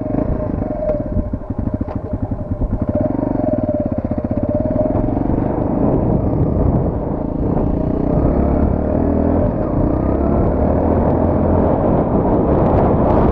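Qlink XF200 single-cylinder motorcycle engine pulling away and picking up speed, rising and shifting in pitch over the first few seconds, then running steadily, with wind buffeting the microphone.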